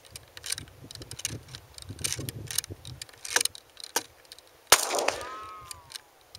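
A single 10mm pistol shot from a Glock 20 about three-quarters of the way in, with a ringing that falls in pitch as it dies away. Small clicks and rustles come before it.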